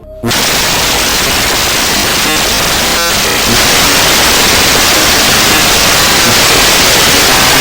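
Sudden blast of very loud, harsh static-like noise filling every pitch. It cuts in abruptly just after the start and gets louder again about three and a half seconds in.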